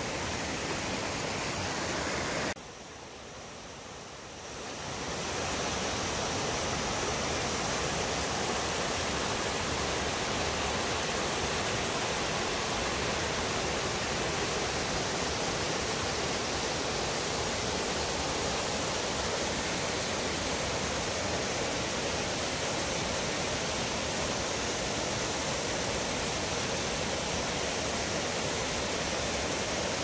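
Steady rush of fast-flowing mountain stream water. It drops away briefly about three seconds in, then swells back to the same even level.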